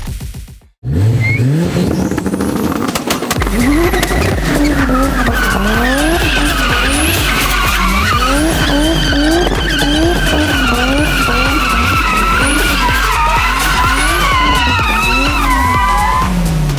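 A car drifting: its engine revs up and down over and over while the tyres squeal in one long, wavering screech that starts a few seconds in.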